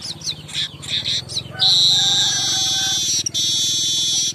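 Weaver bird (manyar) song: a quick run of short, falling chirps, then, about a second and a half in, a loud, long buzzing wheeze that cuts off near the end. A low steady hum runs underneath.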